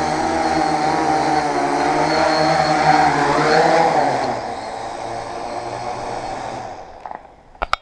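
Tarot FY-680 hexacopter's electric motors and propellers whirring, the pitch wavering as the throttle changes. The sound drops about four seconds in and dies away near seven seconds as the motors spin down. A couple of sharp clicks come at the very end.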